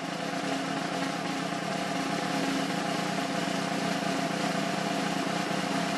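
Arena crowd noise, steady and getting slightly louder, as spectators watch a shot slide toward the net.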